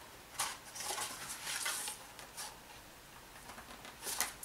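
Cardstock rustling and scraping in a few short strokes as it is folded and pressed by hand.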